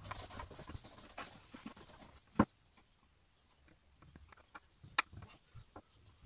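A rag rubbing and wiping over the metal plate of a wooden spirit level, a scratchy rubbing with small clicks, then a sharp knock a little over two seconds in. Afterwards only scattered light ticks of handling and a second sharp knock about five seconds in.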